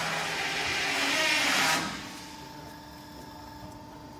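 Rotary halal cattle killing box turning under power: a loud rushing hiss that drops away about two seconds in, leaving a steady machine hum with a thin whine.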